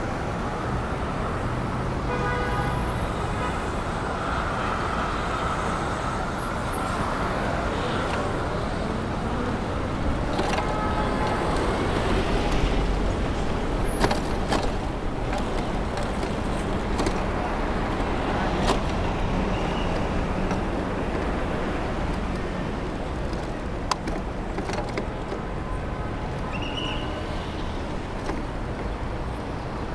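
City street traffic heard from a moving bicycle: cars and buses running past in a steady rumble, with a few sharp clicks along the way.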